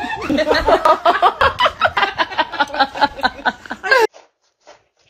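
Hearty laughter in quick, loud, rhythmic pulses that cuts off suddenly about four seconds in, followed by a few faint short sounds.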